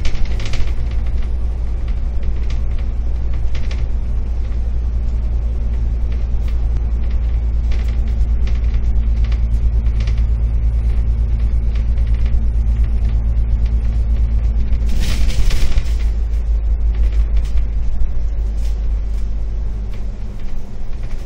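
Double-decker bus diesel engine running steadily with a deep, even rumble, light clicks scattered through it, and a short burst of hiss about fifteen seconds in.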